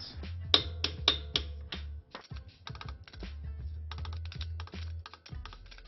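Torque wrench ratcheting as a car's lug nuts are torqued to 90 foot-pounds: a long run of quick, irregular clicks, a few louder ones in the first second and a half.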